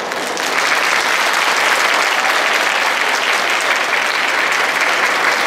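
Audience applause, rising about half a second in and then holding steady.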